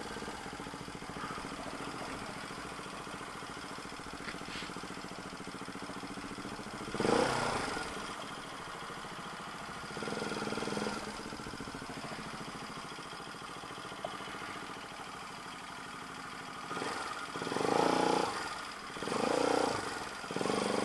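Motorcycle engine with a newly fitted muffler running steadily, swelling louder a few times: briefly about seven seconds in, again around ten seconds, and twice more near the end.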